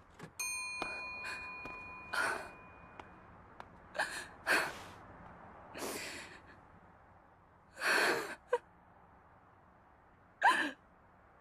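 A small bell rings once, its tone fading over about two seconds. Then a woman breathes out in a run of heavy, distressed sighs and gasps, the last one catching into a short whimper.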